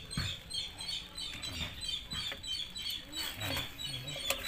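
Small birds chirping rapidly and continuously in the background, with a couple of sharp metallic clicks from the drum-brake shoe, springs and hardware being handled and fitted, one just after the start and one near the end.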